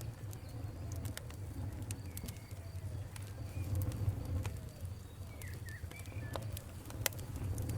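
Wood fire crackling, with sharp irregular pops over a steady low rumble of the flames. Faint short whistling chirps come and go through it.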